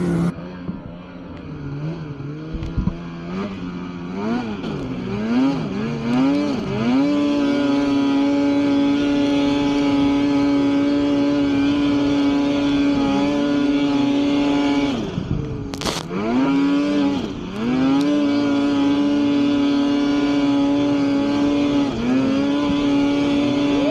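Polaris 9R snowmobile's two-stroke engine under hard throttle while climbing deep powder. The revs rise and fall in quick blips at first, then hold high and steady. They dip and come back twice, with a short thump at the first dip about two-thirds of the way through.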